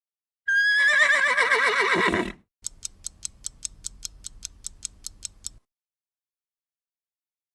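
A horse whinnying for about two seconds, its pitch quavering and falling away. Then a clock ticks evenly, about five ticks a second, for some three seconds and stops.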